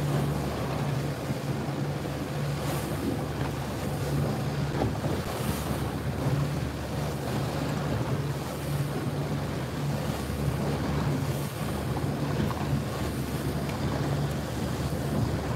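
A boat's motor running steadily under way, a constant low hum, with wind buffeting the microphone and water washing past the hull.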